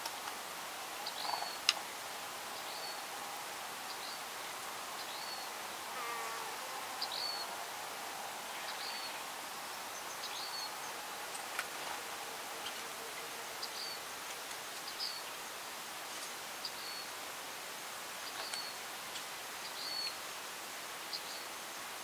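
Outdoor ambience: a faint steady hiss with short, high chirps repeated about once a second, and a faint buzz through the first half.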